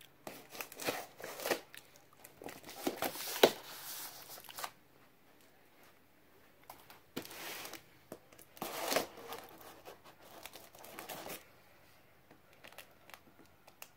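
Knife blade slicing and tearing through a cardboard shipping box, in irregular spurts of scraping with short pauses between, and a sharp snap about three and a half seconds in.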